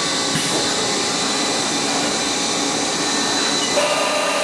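Live-tooling milling motor of a Haas SL-30TBB CNC lathe running at 2,000 RPM, a steady whir with a high whine. A lower tone joins in near the end.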